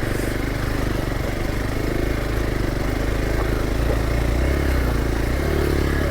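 Hero Xpulse 200 4V single-cylinder motorcycle engine running at steady low revs while riding, heard from the bike, with the engine note getting slightly stronger about four seconds in.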